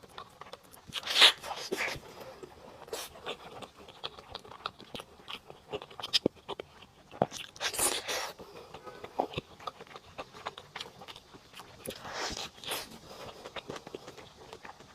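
Close-miked eating of a saucy beef burger: steady chewing with many small wet clicks, and several louder bites about a second in, around eight seconds and around twelve seconds.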